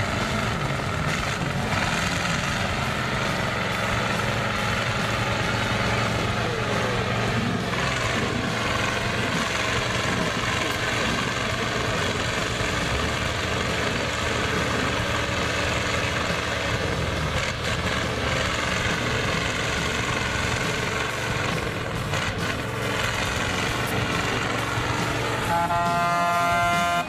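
Ural 6x6 truck's engine running steadily under load as the truck crawls through a deep pit and climbs out. A horn sounds for about a second and a half near the end.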